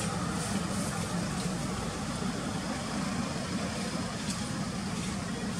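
Steady low rumble of road traffic, with a constant engine-like hum underneath and a few faint clicks.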